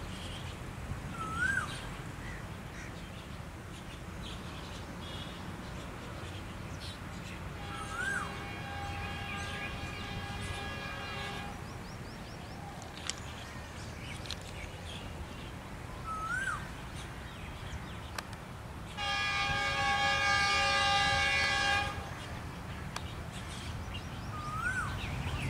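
Air horn of a Pakistan Railways GEU-20 diesel-electric locomotive sounding two long chord blasts as the train approaches, the first about four seconds long and the second, about eight seconds later, louder and about three seconds long, over a low rumble. A bird gives a short rising call about every eight seconds.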